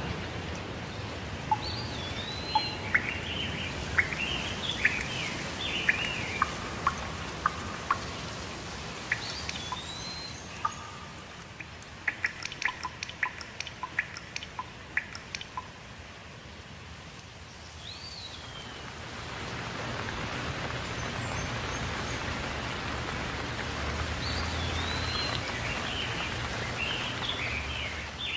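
Steady rain with birds calling over it in short whistled and chirping phrases. About halfway through comes a quick run of sharp ticks, and the rain eases slightly before swelling again.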